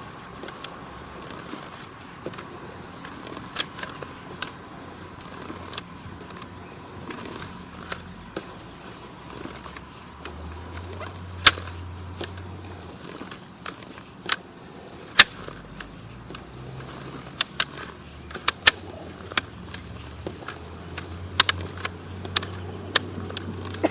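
Sewer inspection camera push cable being fed up the lateral: irregular sharp clicks and knocks over a low hum that swells a couple of times.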